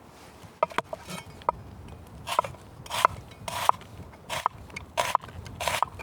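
Repeated crunching, scraping strokes, about one every 0.7 seconds, after a few sharp clicks near the start.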